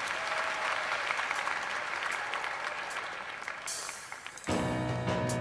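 Studio audience applauding. About four and a half seconds in, the instrumental intro of the song starts suddenly with sustained chords.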